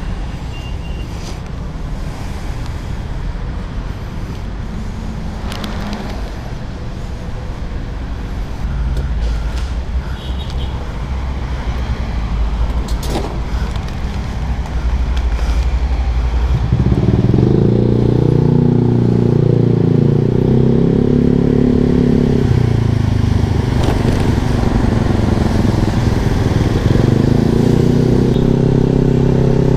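Exhaust note of a Yamaha Lexi scooter's single-cylinder engine through an Arrow aftermarket exhaust. It starts as a low rumble, and a little past halfway a loud, deeper-toned note sets in suddenly and holds, easing briefly before picking up again.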